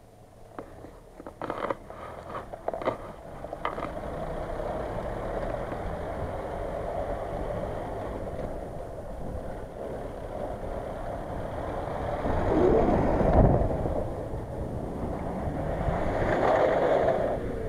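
An off-road SUV's engine revving as it circles and slides on wet sand and mud, its tyres churning, with the loudest surges about two thirds of the way through and again near the end. A few sharp clicks come in the first few seconds.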